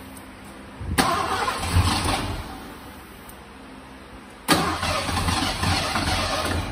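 1986 Ford F-150's starter cranking the engine in two tries: about a second and a half of cranking starting about a second in, then a second crank from about 4.5 s on. The truck has sat for 15 years and has a newly fitted fuel pump, and the engine is cranked in a bid to get fuel up to it.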